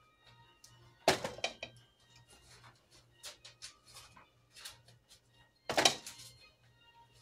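A ladle and spatula scraping and tapping against a canning funnel and glass jars while a thick mixture is filled into half-pint jars. Two sharp knocks, about a second in and near the end, stand out among lighter clicks, over faint background music.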